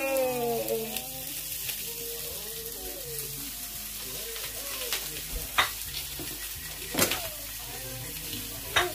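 Mackerel sizzling in a frying pan on a gas hob, a steady frying hiss, with a few sharp clicks.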